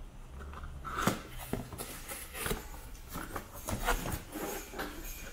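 Hands handling a cardboard box, with scattered light taps, knocks and scrapes as it is turned over and moved about on a hard tabletop.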